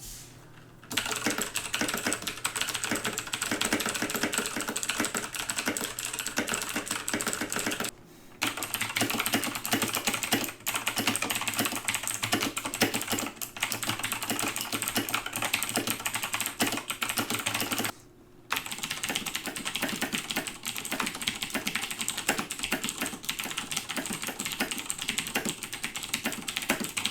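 Fast, continuous typing on clicky blue-switch mechanical keyboards, in three takes separated by short pauses about 8 and 18 seconds in. First the EasternTimes I-500's Huano Switchmaster Blue switches under thin single-shot ABS keycaps, then Cherry MX Blues, then Outemu Blues.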